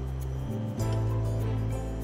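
Background music: sustained low notes, the chord changing just under a second in.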